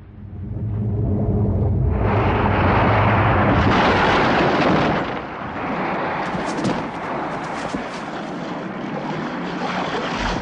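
Film sound of a huge shark crashing onto the stern of a wooden fishing boat: a rushing roar of water and wreckage that builds over the first two seconds and is loudest until about five seconds in. After that comes a lower, steady rumble with a few sharp cracks about six to seven seconds in.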